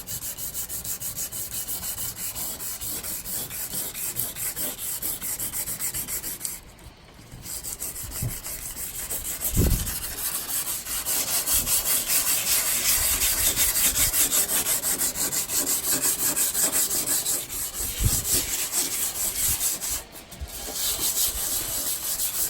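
Wet sandpaper rubbed by hand in rapid back-and-forth strokes over a carbon fiber hood, wearing away the old clear coat. The rubbing stops briefly twice, once about a third of the way in and again near the end.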